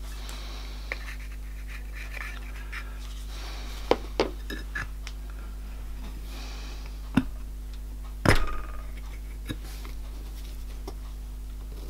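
A thin sheet-metal disc and an aluminium fixture handled by hand on a bench: the disc is laid over a centring pin and pressed down, giving scratchy rubbing and several sharp clicks and knocks. The loudest knock, with a brief rattle, comes about eight seconds in, over a steady low hum.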